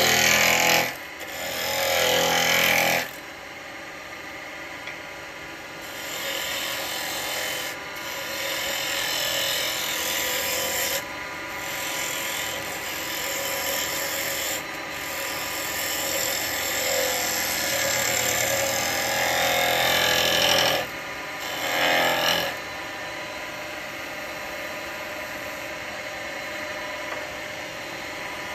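Wood lathe running with a steady motor hum while a spindle gouge cuts a small bowl blank in repeated stretches of scraping hiss. The cuts are loudest in the first few seconds and again briefly about three-quarters of the way through.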